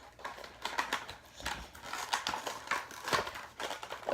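Irregular clicks, taps and rustles of a toy's cardboard-and-plastic box being handled and opened by hand.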